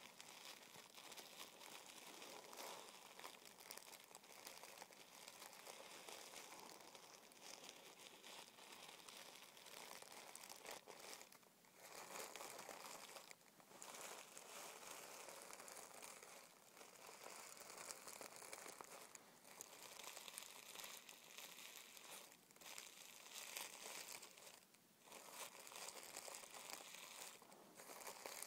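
Fingertips rubbing and crinkling tissue paper: a faint, continuous crackling rustle with a few brief pauses.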